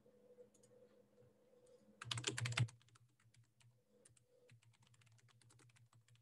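Typing on a computer keyboard: a few scattered key clicks, then a quick, louder run of keystrokes about two seconds in, followed by rapid continuous typing. A faint low hum runs underneath.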